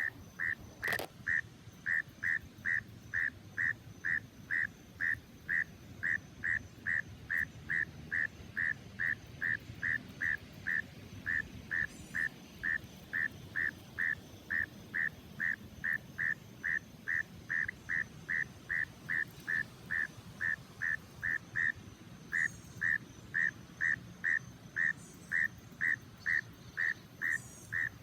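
A frog calling from the grass: a long run of short, same-pitched notes, about three a second, with two brief pauses.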